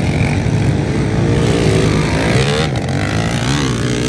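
Several small pit bike engines revving hard on a motocross track, ridden wide open, their pitch rising and falling with the throttle.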